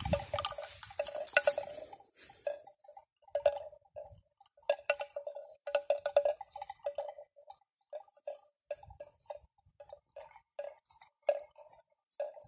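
Neck bell on a grazing water buffalo clonking irregularly as the animal moves its head, the same two notes knocking in short runs with brief pauses.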